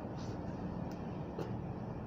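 Chewing raw vegetables, with three short crunching clicks, over a steady low background hum.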